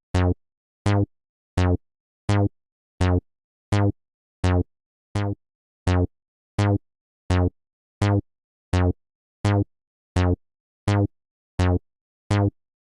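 Synthesized railroad-crossing-bell-style tone repeating steadily, about eighteen short tones roughly three quarters of a second apart, each one falling in pitch.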